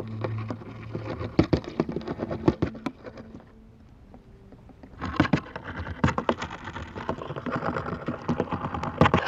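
Male wolf spider's courtship drumming on a dry leaf, picked up by a laser vibrometer and played as sound: rapid crackling taps, a quieter pause a little after the middle, then a denser run of taps. It is the spider's seismic courtship signal to a female, set off by her silk.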